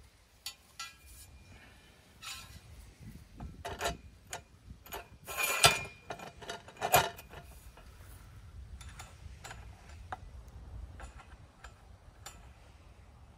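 Metal pipe clinking and scraping against metal railing-holder brackets as it is slid down through them: scattered small clicks, with a louder ringing clank about five and a half seconds in and another about seven seconds in.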